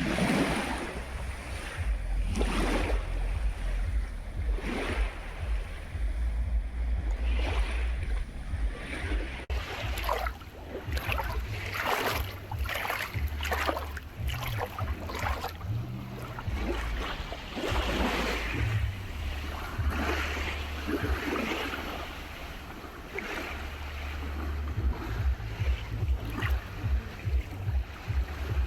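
Small sea waves breaking and washing on the shore again and again, with wind buffeting the microphone.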